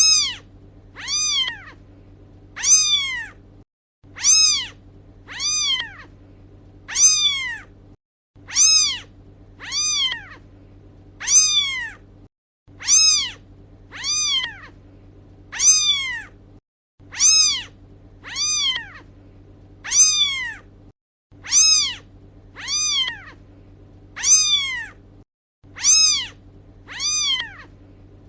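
Kitten meowing over and over: short high meows that rise and fall in pitch, about one every second and a half, repeating as a loop of three, with a steady low hum between them.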